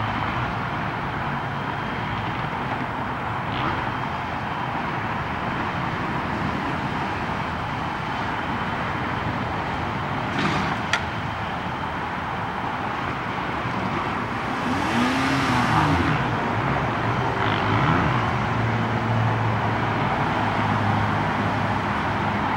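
Steady roadside traffic noise with cars passing by. One passes close about 15 seconds in, louder and falling in pitch as it goes by.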